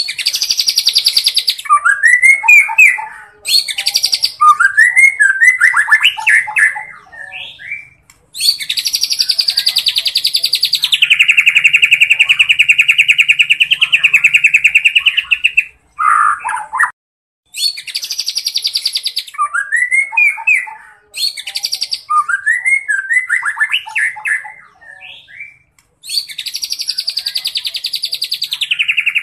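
A juvenile white-rumped shama singing loud, rapid rattling trills, the longest several seconds long, that start high and step down in pitch partway through. Shorter rising-and-falling whistled phrases come between them, and the same sequence starts again about halfway through.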